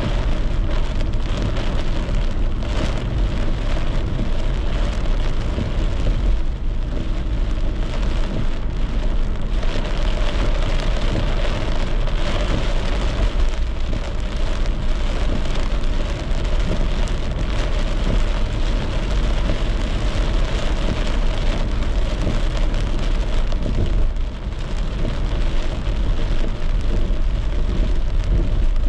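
Steady rain on a moving car, mixed with tyre and road noise from driving on wet streets and a low rumble underneath.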